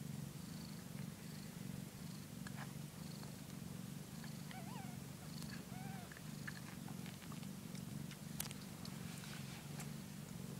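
Korat mother cat purring steadily while her kittens nurse, with a few faint high squeaks about halfway through.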